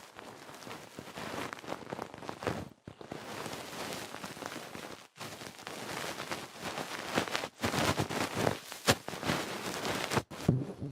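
Close-miked ASMR trigger sounds: crackly rustling with small clicks and taps, in short edited snippets that cut off abruptly a few times.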